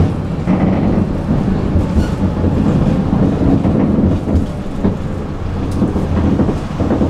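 Tram running along the track, heard from inside the car: a steady low rumble of wheels on the rails with a few faint clicks.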